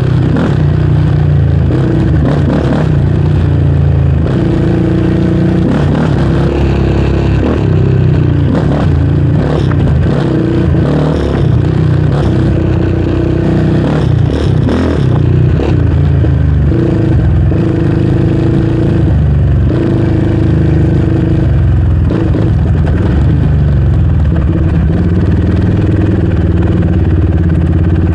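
Yamaha Raptor 700R sport ATV's single-cylinder four-stroke engine running at riding speed, its pitch rising and easing with the throttle, with short knocks and clatter as the quad crosses bumps, mostly in the middle of the stretch.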